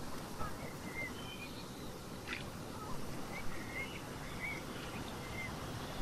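Steady wash of ocean surf, with small birds chirping in short, high calls every second or so over it.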